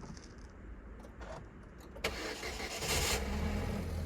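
Jetour Dashing engine cold-started in frost: the starter engages suddenly about two seconds in, the engine catches with a short loud burst and settles into a steady idle. A faint grinding at start-up comes from the driver's side of the engine bay, its cause unknown to the owner.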